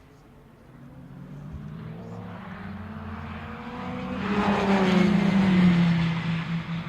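Sports-prototype or GT race car approaching and passing at speed. The engine note builds, is loudest about five seconds in, then drops in pitch as it goes by.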